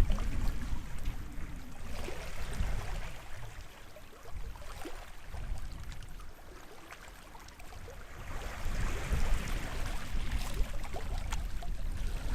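Small waves washing onto the shore of a sheltered bay: a wash draining away, a quieter lull, then another wave breaking and washing in about eight seconds in, with fine crackling of water over the beach.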